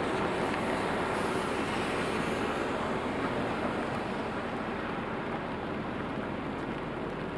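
Steady rain with traffic on wet city streets: an even hiss over a low rumble that eases off slowly.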